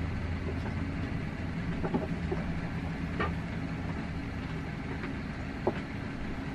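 A steady low mechanical hum, with a few faint, short clicks over it.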